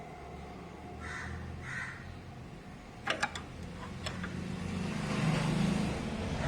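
A quick run of sharp metallic clicks about three seconds in and another a second later, from hand tools on the engine, over a low hum that swells near the end. Two short call-like sounds come about a second in.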